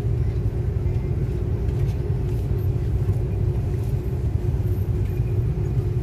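Steady low rumble inside an airliner cabin as the plane moves on the ground, from the engines and the rolling aircraft, with a faint steady hum over it.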